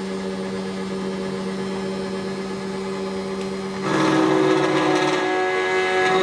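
SEC-E9 automatic key cutting machine running steadily as it cuts a Toyota TOY43 key blank. About four seconds in, the sound turns louder and harsher for roughly two seconds as the cutter bites into the blank.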